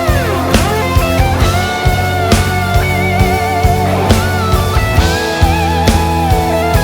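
Instrumental break of a gospel rock song: a lead melody with wide vibrato, most likely an electric guitar, plays over drums and bass, opening with a downward pitch glide.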